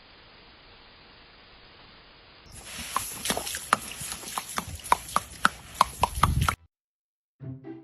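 A faint hiss, then about four seconds of irregular sharp clicks and knocks, two or three a second, over background noise, cutting off suddenly.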